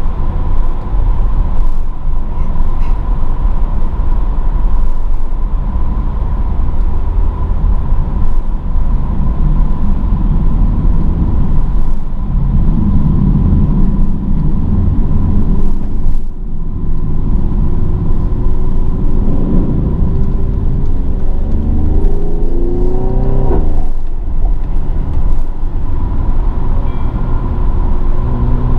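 Mercedes-AMG GLE 43's twin-turbo V6 engine and road noise while driving, a steady low rumble. About two-thirds of the way through, the engine note climbs in pitch as the car accelerates, then breaks off sharply as it shifts up and settles into a steady note.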